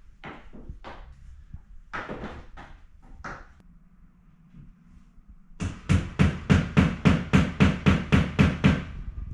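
A few scattered knocks and handling sounds, then a little past halfway a run of about fifteen quick, even hammer blows, roughly five a second, as a license plate is fastened to a wall.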